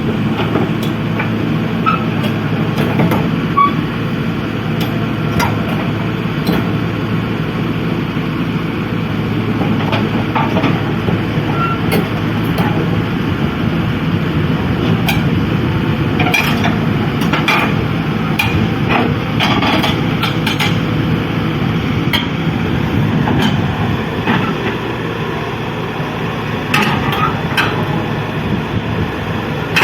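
Heavy diesel construction machinery running steadily, with frequent sharp metallic clanks and knocks over the engine's low drone.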